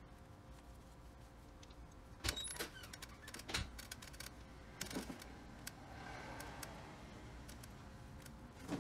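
Brush and paper cup handled while epoxy resin is brushed onto a carbon fiber part: a few sharp clicks and taps from about two seconds in, then a faint brushing scrape, and another click near the end.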